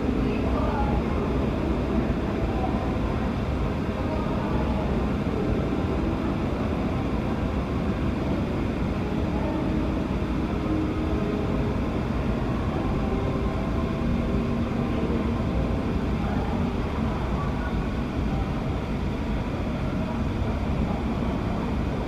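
Strong wind buffeting the microphone: a steady low rumble that does not rise or fall.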